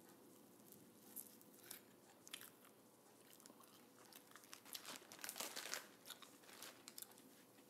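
Faint, sparse crunching and crinkling from eating and handling candy: a sugar-coated Peeps marshmallow being bitten and chewed, and a cardboard candy box being opened. The rustling is a little louder around five seconds in.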